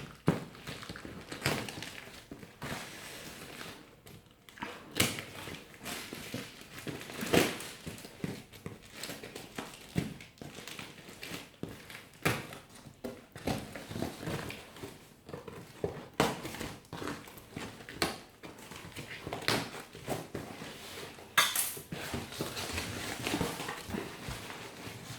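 A parcel being unpacked by hand: packaging rustling and crinkling, with irregular clacks and clinks of hard items such as scissors and graters being handled.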